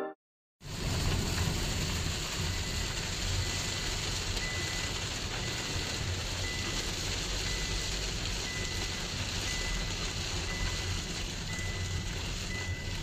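Heavy rain on a car's windshield heard from inside the moving car, over the steady low rumble of the engine and tyres on a wet road, starting about half a second in.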